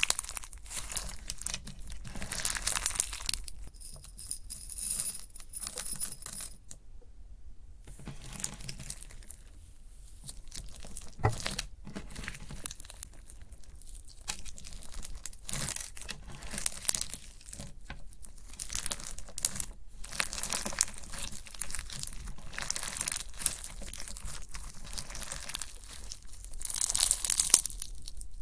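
Slime being squeezed, pressed and pulled apart by hand, giving dense crackling, popping and tearing sounds made of many small clicks. It breaks off briefly about a quarter of the way through.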